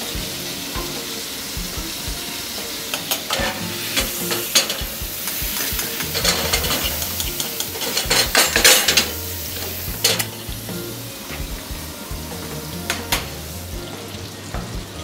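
Sea bream fillet sizzling in foaming butter in a frying pan, with clinks and scrapes of the pan and utensil now and then, loudest between about six and nine seconds in.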